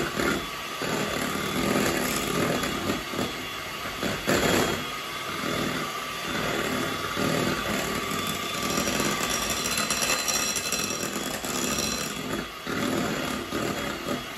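Handheld electric mixer running steadily, its beaters whipping heavy cream and powdered sugar in a glass bowl toward stiff peaks.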